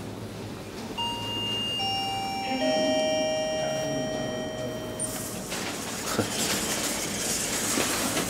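A 2012 SMW traction elevator's chime sounding three falling notes, each ringing on and fading out. From about halfway through, a loud rushing noise comes in.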